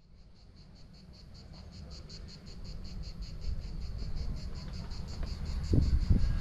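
Insects chirping in a fast, even, high-pitched pulse, about seven or eight pulses a second, over a low rumble that grows louder near the end.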